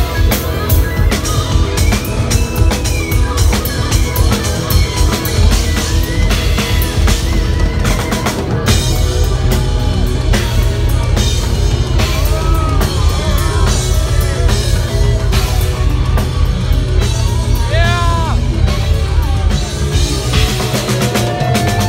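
Heavy progressive metal band playing loud and live, with a pounding drum kit and bass drum under distorted electric guitar. Bending lead guitar notes slide up and down around the middle and again about three quarters through.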